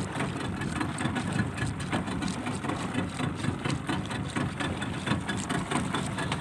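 Small fishing boat's engine running steadily at low speed.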